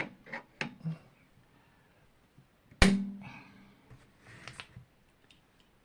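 Small clicks of wire and hand tools being handled, then one sharp snap about three seconds in with a short low ring after it, and a brief rustle near the end.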